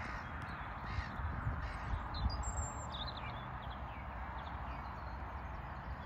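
Bird calls, a few short ones about one to three seconds in, over a steady rushing noise and a low rumble.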